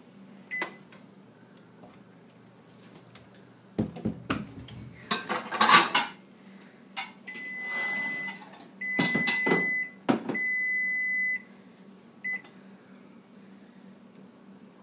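Electronic beeper of a kitchen appliance: a short beep, a clatter of handling, then three long beeps of about a second each at one steady high pitch, and another short beep near the end.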